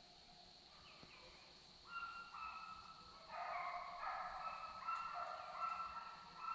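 A pack of deer-hunting hounds baying while running a deer, several dogs giving overlapping drawn-out bawls. The baying is faint at first and gets louder and denser from about two seconds in.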